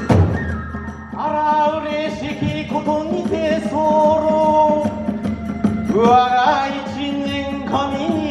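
Kagura hayashi music: a drum and cymbal stroke at the start, then a held, wavering melodic line over a steady low drone, with new phrases starting about six and eight seconds in.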